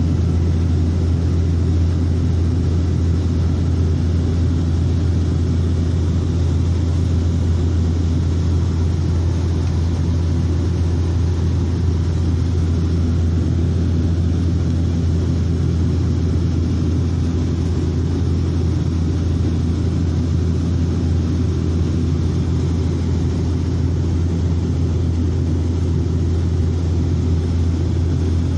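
Steady low drone of an airliner's engines and rushing air, heard inside the passenger cabin during descent.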